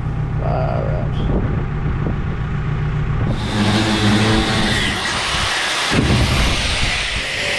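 Tractor engine running steadily. About three seconds in, the sound switches abruptly to a loud rushing noise over the engine.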